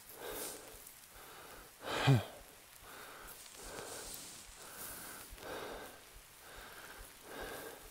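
A runner breathing hard right after a 2-mile run, catching his breath in quick, even breaths, with one louder voiced sigh that drops in pitch about two seconds in.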